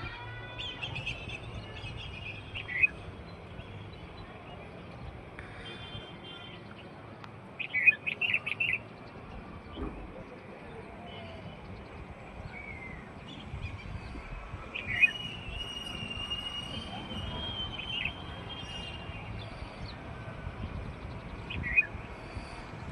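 Small songbirds chirping and calling on and off, with short loud bursts of quick chirps, the busiest a rapid run about eight seconds in. A steady low rumble sits underneath.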